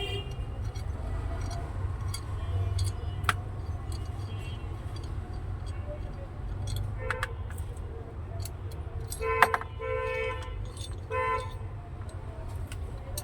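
Small metal parts clicking and clinking as they are handled, over a steady low background rumble. Three short horn-like honks sound near the end, the first the loudest.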